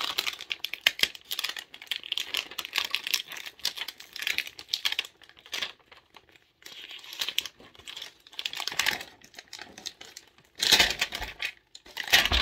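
Toy packaging being crinkled and torn open by hand: irregular crackling with a short lull in the middle and the loudest rips near the end.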